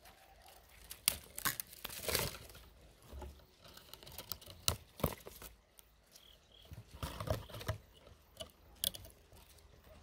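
Irregular crackling and rustling close to the microphone: the dry twigs and narrow leaves of a sea buckthorn tree brushing and snapping against each other as the branches are handled, in loose clusters rather than a steady stream.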